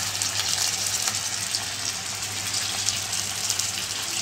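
Chopped tomatoes frying in oil in a pan: a steady sizzle with fine crackles, over a low steady hum.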